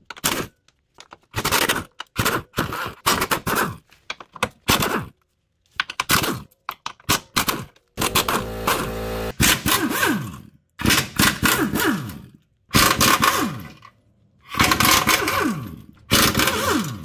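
Air impact wrench hammering the bolts loose on the steering rack mounting brackets, in short bursts of about a second with pauses between. Near the middle it gives one longer steady run, and its pitch falls as it winds down after several bursts.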